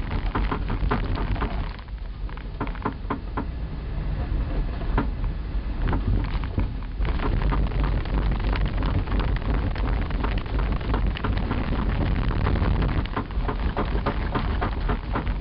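Vehicle jolting over rough ground: a constant clatter of rattles and knocks over a deep rumble, easing a little about two seconds in and coming back harder midway.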